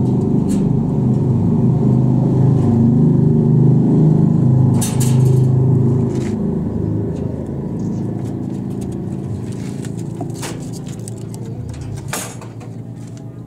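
A steady low engine-like rumble that slowly fades, with a few sharp knocks and rattles over it.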